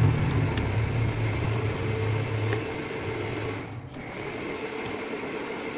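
A low, steady mains-type electrical hum over faint room noise, which weakens after about three seconds.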